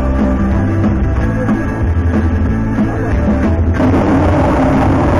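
Timber Wolf Grand slot machine playing its bonus-wheel music with a rock drum beat. About three and a half seconds in the sound changes abruptly to a denser, rumbling spin sound as the bonus wheel is set spinning.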